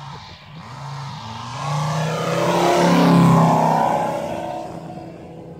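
Giant-scale RC AT-6 Texan's Moki 250 five-cylinder radial engine in a low flyby. The engine note swells to its loudest about three seconds in, drops in pitch as the plane passes, and then fades away.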